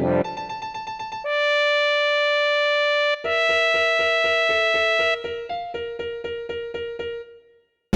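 Homemade emergency alert (EAS) alarm made of synthesized keyboard tones: quick repeated notes about five a second, then two long held chords of about two seconds each, then the quick repeated notes again, which die away shortly before the end.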